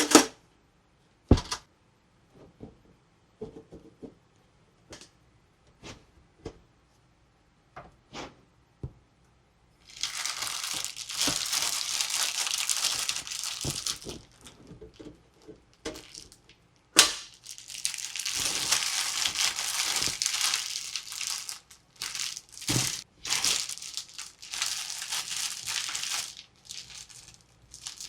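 Toy packaging being handled: scattered light clicks and taps, then three long spells of crinkling and rustling, with a sharp snap about 17 seconds in.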